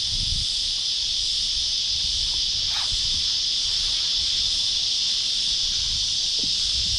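Cicadas in a steady, high-pitched chorus, over a low rumble.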